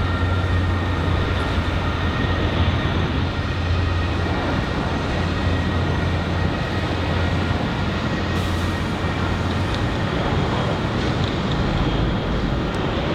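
Jet airliner engines, a steady rumble with a strong low hum and a faint high whine; the low hum weakens after about eight seconds.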